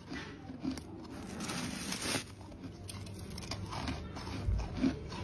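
Flaky freezer frost crunching in a plastic bag: a run of irregular crisp crunches, loudest about two seconds in.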